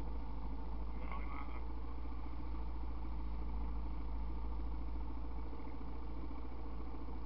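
ATV engine idling steadily, a low, rapid putter.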